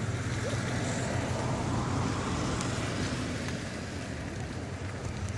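Distant low rumble of an Atlas V rocket climbing away after launch, a steady roar with a hiss that eases off slightly after about three seconds.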